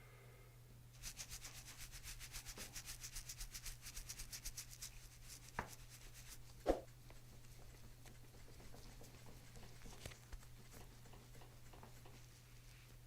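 Fast, faint rubbing strokes of a hand over the patient, about ten a second for some four seconds, followed by two soft taps.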